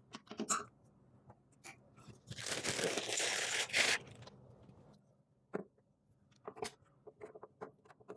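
A ripping sound for about a second and a half, with scattered small clicks and knocks from hands working with cables before and after it.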